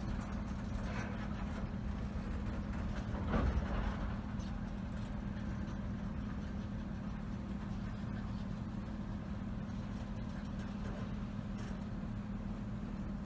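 Freight cars rolling slowly past on the rails, a steady low rumble of wheels and running gear, with one brief louder knock about three and a half seconds in.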